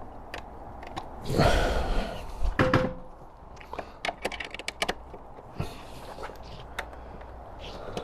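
Small clicks and knocks of metal bolts and plastic screen parts being handled and done up by hand, with a louder rustling scrape about a second and a half in.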